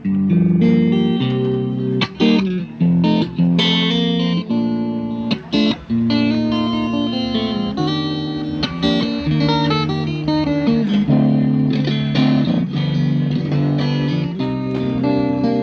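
Guitar music: plucked notes and held chords, changing every second or so.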